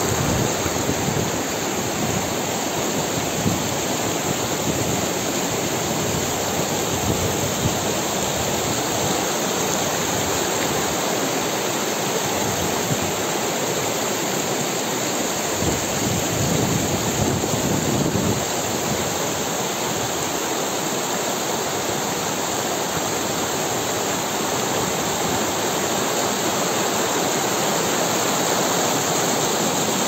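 Spring-fed mountain stream rushing over rocks: a steady, even rush of white water.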